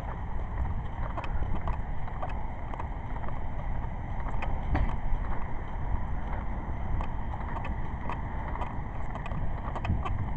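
Outdoor wind buffeting the microphone as a steady low rumble, with faint scattered ticks over it.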